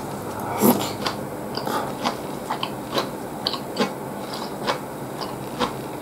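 A person slurping and chewing ramen noodles close to the microphone: one louder slurp near the start, then irregular wet mouth clicks and smacks as the noodles are chewed.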